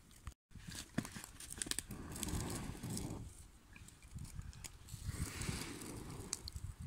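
Irregular rustling, crackling and crunching as dry twigs and pine brush are handled and pushed onto a small fire in snow, with a short gap of silence just under half a second in.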